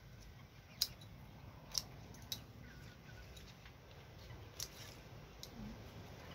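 Scissors snipping through the stalks of flowering mustard greens: five short, sharp snips at uneven intervals.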